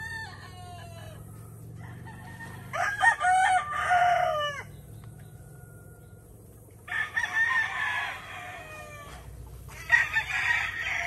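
Gamefowl roosters crowing: three crows a few seconds apart, each sliding down in pitch at its end.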